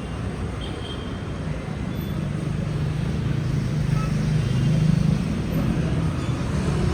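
Steady low rumbling background noise with no clear tone or rhythm, swelling slightly toward the middle.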